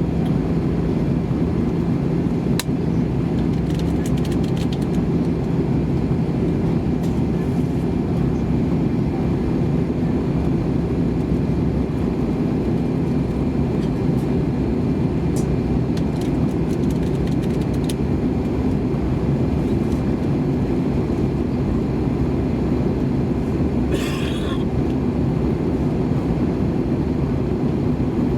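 Steady drone of an Airbus A320 heard inside the passenger cabin: engine and airflow noise with a low, even hum. A few faint clicks and a short rustle near the end.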